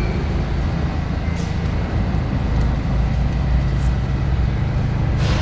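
Subway train rumbling in the station: a loud, steady low rumble with a couple of short hisses.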